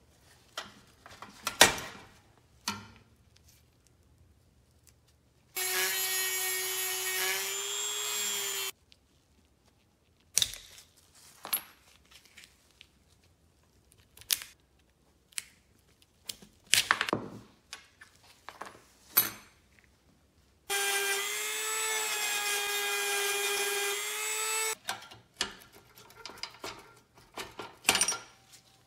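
A small high-speed rotary tool runs twice, for about three and then four seconds, at a steady pitch while grinding on the toy's pressed-steel body. Between the runs come scrapes, clicks and knocks of hand tools on the thin sheet metal.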